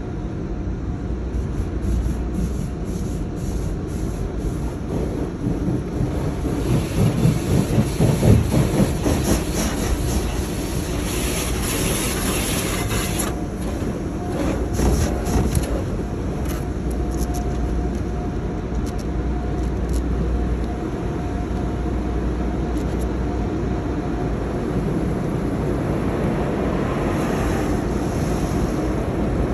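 Automatic drive-through car wash heard from inside the car: water spray and washing equipment beating on the body and windows, a steady rumble with rapid slapping and hiss, loudest about a quarter of the way in. A faint steady whine runs through the middle stretch.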